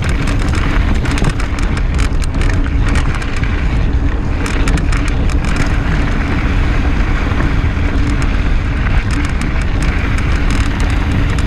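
Mountain bike ridden over a rocky dirt trail: wind buffets the microphone in a steady rumble, while the tyres crunch over gravel and the chain and frame rattle in many sharp clicks.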